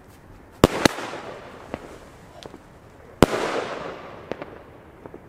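Funke Tempest 30 mm single-shot firework going off: two sharp bangs close together about half a second in, then a louder bang about three seconds in, followed by a noise that fades over about a second and a few small cracks.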